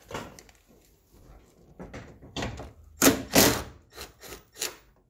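Cordless driver with a socket extension running in short bursts as it spins out a dashboard mounting bolt. The loudest bursts come about three seconds in.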